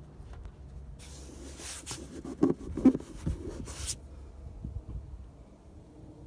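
Rubbing and scraping handling noise on the phone's microphone, with a few soft knocks in the middle, starting about a second in and stopping about four seconds in.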